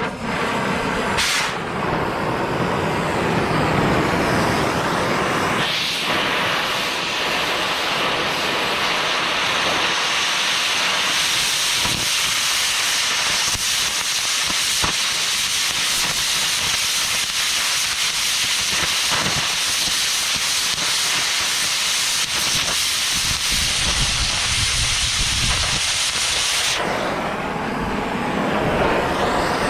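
Oxy-fuel cutting torch cutting into a cast auger pilot bit: a loud, steady hiss of flame and cutting oxygen that starts about a second in. Near the end the high hiss drops away, leaving a lower rumble.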